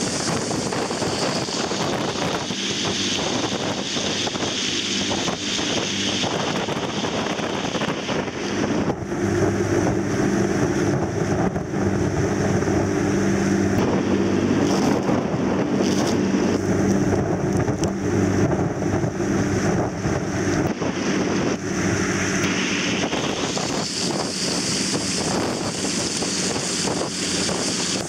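Brooklyn VI party boat's engines running at speed, a steady hum over the rushing of its churning wake, with wind buffeting the microphone. The engine hum grows a little louder from about nine seconds in and eases back near the end.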